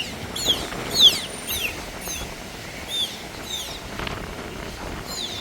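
Birds calling: a quick run of high, swooping whistled chirps, thickest in the first few seconds and then sparser, over a steady outdoor background.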